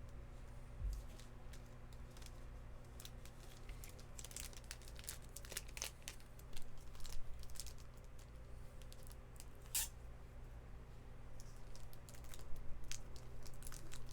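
Stickers being peeled from their backing sheet and pressed on by hand, with scattered crinkling and small crackles of paper handling, over a faint steady low hum.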